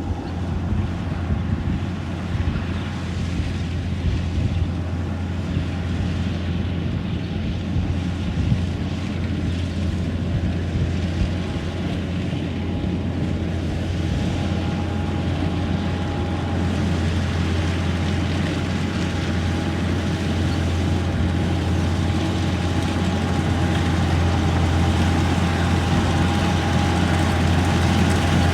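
Kubota rice harvester running steadily under load, a deep engine hum with a thin steady whine over it. The whine grows plainer about halfway through, and the machine gets slightly louder toward the end.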